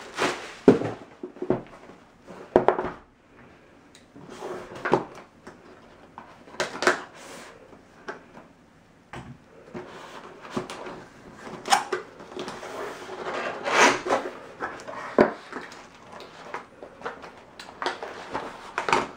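Cardboard box being opened and its packaging handled: irregular rustles, scrapes and light knocks, the loudest a little past halfway.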